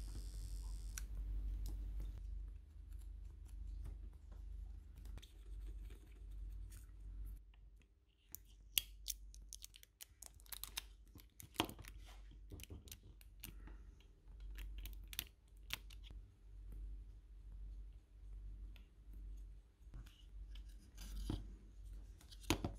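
Faint clicks, scratches and scrapes of small tools and parts being handled at a PS4 controller's circuit board. They come in clusters through the middle and again near the end, over a low steady hum.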